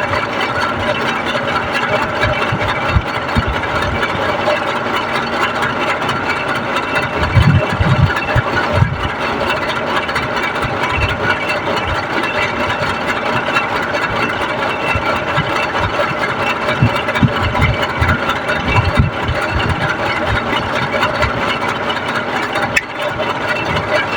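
A steady engine or motor running throughout, with scattered low knocks and thuds.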